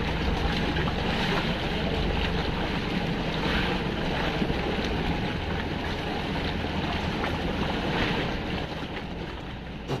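Steady wind blowing across the microphone, with the sea washing around a small fishing boat and a constant low rumble underneath.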